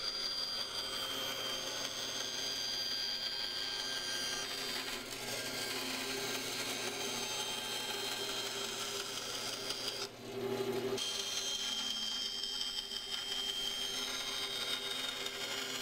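Bandsaw running and cutting through an ash board along a traced handle outline: a steady whir with a high whine. The sound drops out briefly about ten seconds in, then resumes.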